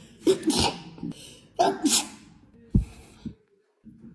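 A person sneezing twice in quick succession, each sneeze a sharp two-part burst, set off by a nasal swab test. A dull low thump follows about two-thirds of the way in.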